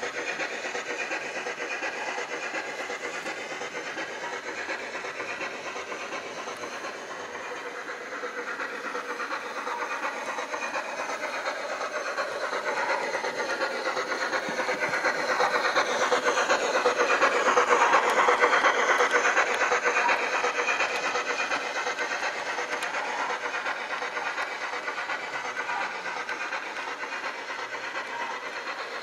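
Zimo sound decoder in an OO gauge Hornby model of the A4 locomotive Bittern, playing steam locomotive running sounds through its small speaker, mixed with the model's wheels running on the track. The sound grows louder as the model approaches, peaks about two-thirds of the way through, then eases off.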